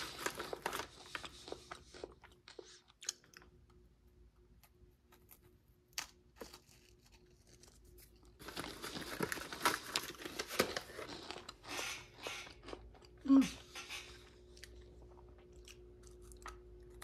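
Crinkling of a plastic snack pouch and the crunching and chewing of cheddar cheese-filled Combos, in spells with quieter gaps between. About two-thirds of the way in comes one short, louder bump.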